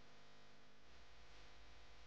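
Near silence: faint steady background noise, with a low rumble coming in about a second in.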